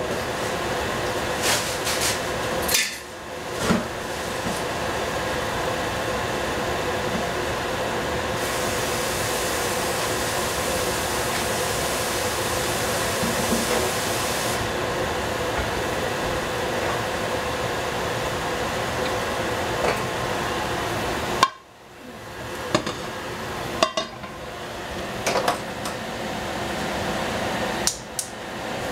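Cooking on the stove: a metal utensil knocks and scrapes against the pan at intervals over a steady frying hiss. The hiss cuts out sharply twice, briefly a few seconds in and longer about three-quarters of the way through.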